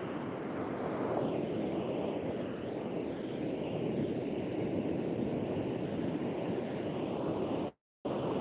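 Steady rush of ocean surf breaking on a sand beach, mixed with wind on the microphone. The sound cuts out completely for a moment near the end.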